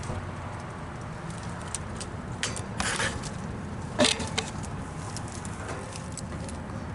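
Trane XE1100 outdoor heat pump running with a steady low hum, its compressor and condenser fan going. Scattered light clicks and rustles sit over it, with a sharper knock about four seconds in.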